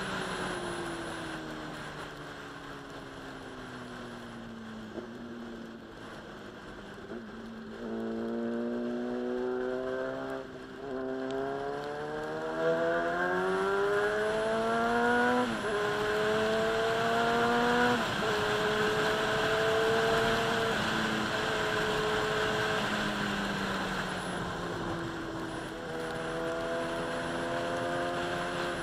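Inline-four sport motorcycle engine on the move, with wind rushing over the microphone. The revs fall away for the first several seconds, then climb hard through the gears with brief breaks at the shifts, hold steady for a while, and drop and rise again near the end.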